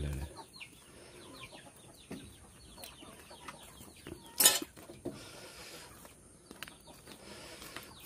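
Fowl clucking quietly in a run of short calls, with one sharp click about four and a half seconds in.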